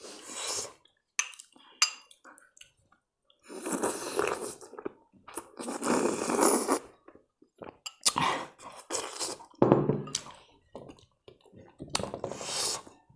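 A person slurping soup from a spoon in several noisy sips, with chewing between them. Light clicks of the spoon against the bowl come about a second in.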